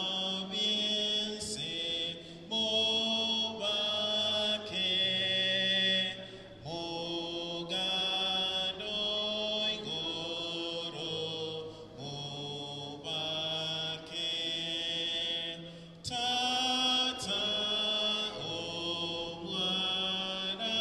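A slow church hymn in sustained chords, each held for a second or two before moving to the next, with brief pauses between phrases.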